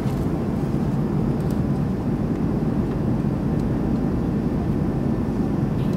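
Airliner cabin noise in flight: a steady, deep rush of engine and airflow noise that does not change.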